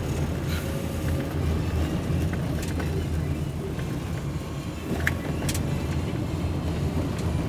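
A car driving slowly, heard from inside the cabin: a steady low engine and road rumble, with a few brief clicks or taps, the sharpest about five seconds in.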